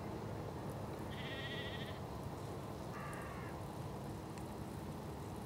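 Sheep bleating twice, two wavering calls about two seconds apart, the second lower, over a steady low background hiss.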